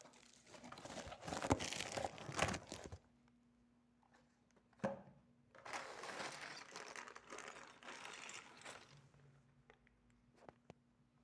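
Plastic packaging crinkling as it is handled, in two stretches with a single sharp click between them.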